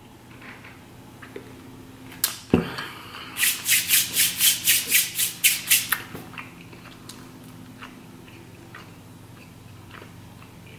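A sharp click and a knock as a paper milkshake cup is put down on the table, then about a dozen quick scraping, rattling strokes in an even rhythm of about four or five a second, lasting some two and a half seconds.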